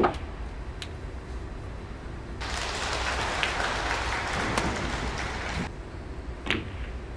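A sharp click of snooker balls being struck at the start, then about three seconds of audience applause that starts and stops abruptly, and another click of the balls near the end.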